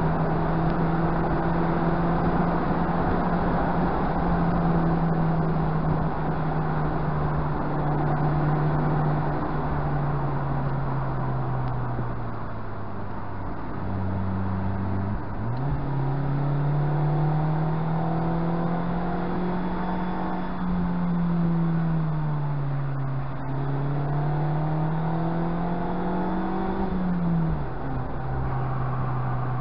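Mazda MX-5's four-cylinder engine running under way, heard from inside the car with tyre and road noise. Its note holds steady, sags about halfway through, jumps back up, then rises and falls repeatedly.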